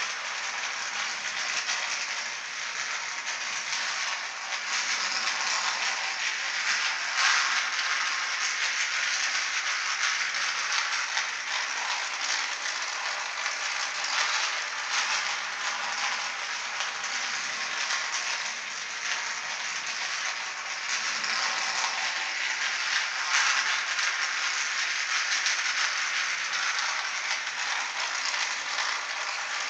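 Battery-powered electric toy train running round its track: a steady rattle of the small motor, gears and wheels on the track, briefly louder twice, about sixteen seconds apart.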